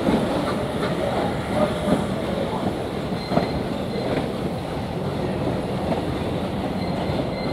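Railway passenger coach rolling along the track: a steady rumble of wheels on rail, with irregular clicks and knocks from the rail joints and a brief faint wheel squeal about three seconds in.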